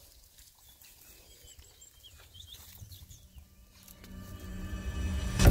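Quiet bush ambience with a few faint, high bird chirps. About four seconds in, a low, ominous music drone fades in and swells quickly.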